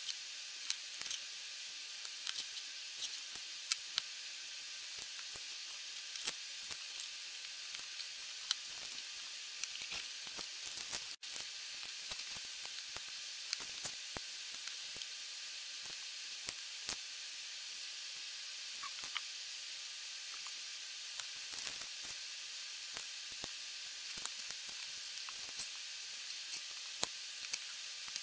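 Small plastic Lego bricks clicking and tapping on a table as they are handled and snapped together, many irregular small clicks over a steady hiss, with a momentary dropout about eleven seconds in.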